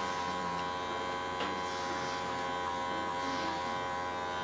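Electric pet clippers buzzing steadily as they shave through a long-haired cat's matted coat.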